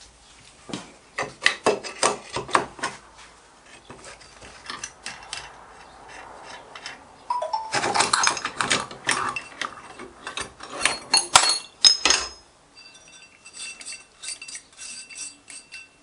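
Metal clinking and knocking in irregular, separate strikes, with a busy stretch in the middle, as of metal tools and parts being handled and set down in a workshop.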